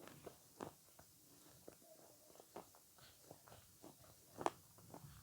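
Faint chewing and mouth sounds of avocado being eaten close to the microphone: scattered soft clicks, with one louder click near the end.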